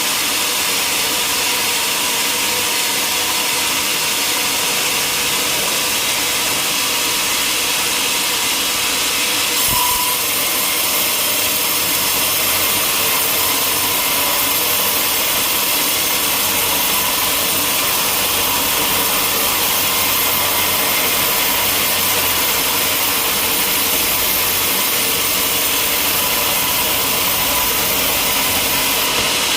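Sawmill machinery running steadily: a loud, even noise with a faint steady hum under it. A brief thump about ten seconds in, where the sound shifts abruptly.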